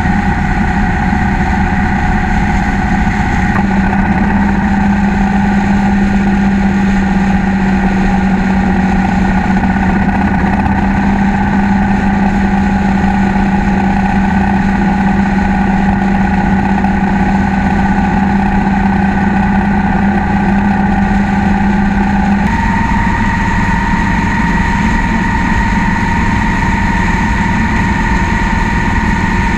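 Cruiser motorcycle engine running at a steady cruising speed, heard from the bike itself with road and wind noise. The engine note shifts abruptly twice, about a few seconds in and again about three-quarters of the way through.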